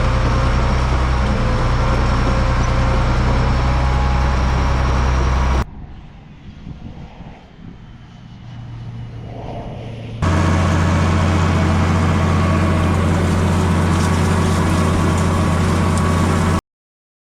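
Heavy diesel engine running steadily, in two loud clips with different pitches separated by a quieter stretch, each starting and stopping abruptly at cuts; it goes silent shortly before the end.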